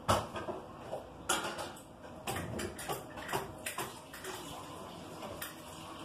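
Indesit washer-dryer in its wash cycle, the drum turning and the wet laundry sloshing inside, with irregular knocks as the load drops against the drum.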